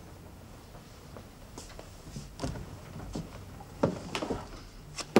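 Wooden wardrobe door being pulled open: a run of separate knocks and clunks, the loudest about four seconds in and again near the end.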